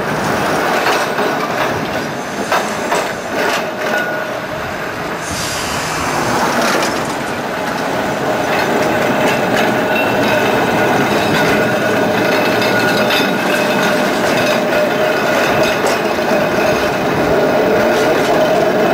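Blackpool electric trams running close by on street track: wheels rolling on the rails with clicks over the rail joints, then a steady high whine from the wheels and motors from about six seconds in.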